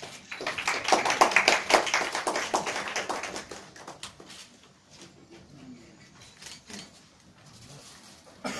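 Audience applauding, loudest over the first three seconds, then thinning out to a few scattered claps.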